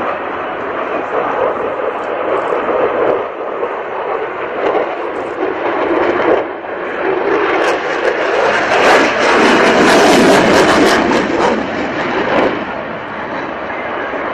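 F-22 Raptor's twin Pratt & Whitney F119 turbofans roaring during a display pass. The roar swells to its loudest, with a rough crackle, about eight seconds in, then eases off near the end.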